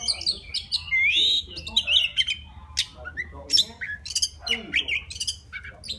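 Male oriental magpie-robin singing to call a female: a fast, unbroken run of varied whistles, rising slurs and sharp high notes.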